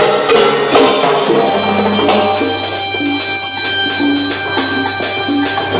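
Live band playing an instrumental passage: long held chords with a reedy wind-like tone over a sustained bass note, driven by a steady percussion beat.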